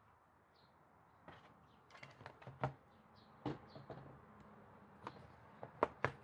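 Scattered light clicks and taps of small objects being handled, starting about a second in, over faint bird chirps in the background.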